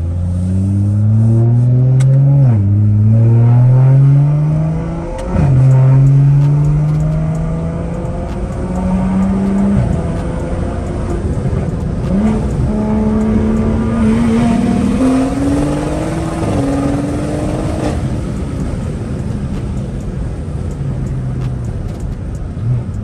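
BMW 340i's turbocharged B58 inline-six, fitted with a big single Garrett turbo, pulling hard through the gears, heard from inside the cabin: the engine pitch climbs and drops at an upshift twice in the first five seconds, then the car cruises on lighter throttle with a few smaller rises and dips as it changes gear again.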